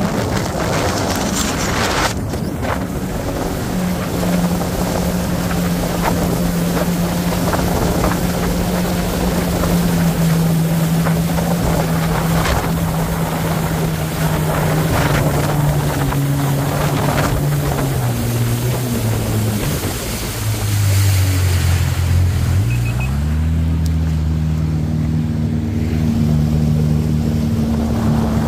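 Jet ski engine running under way, with wind buffeting the microphone. Its note sags about two-thirds of the way in as the throttle eases, then climbs quickly and holds at a higher pitch.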